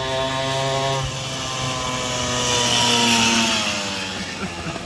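Small motorbike engine running steadily. Its pitch dips slightly about a second in and slides down again later, while a hiss swells in the middle, and the sound eases off near the end.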